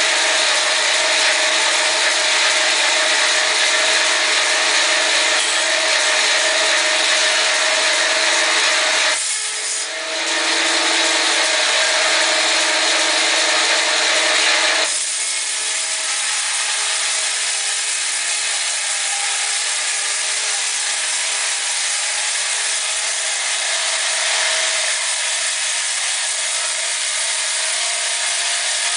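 Powered sawmill sawing through wood: a steady sawing hiss with a low steady hum under it. It dips briefly about nine seconds in, and about fifteen seconds in the hiss drops to a softer, duller sound that runs on steadily.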